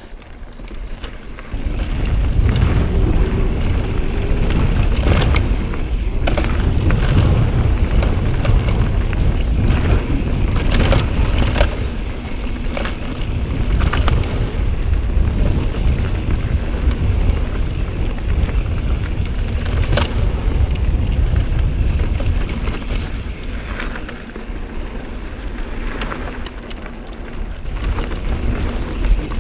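Mountain bike descending a dirt singletrack trail: a heavy low rumble of knobby tires and wind on the camera, rising about a second and a half in, with scattered sharp clicks and rattles from the bike over rocks.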